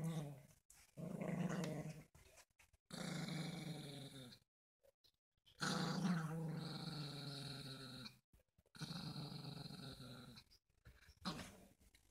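Small long-haired dog growling in a run of long, low growls, each lasting one to two and a half seconds with short breaks between. It is guarding its bone and warning off anyone who reaches for it.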